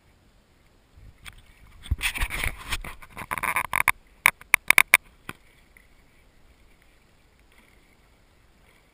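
Water splashing and sloshing right against the microphone of a GoPro held at the lake surface, followed by a quick run of about six sharp clicks.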